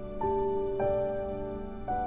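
Slow, soft background music: sustained keyboard-like notes, three new ones entering one after another and ringing on together.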